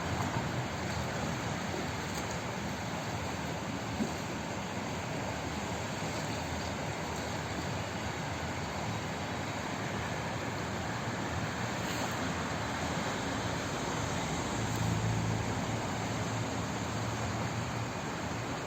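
Flowing water rushing steadily in an even hiss, with a low rumble underneath.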